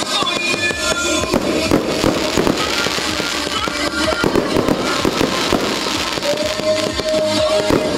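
Fireworks going off in quick succession, many sharp bangs and crackles, over music playing at the same time.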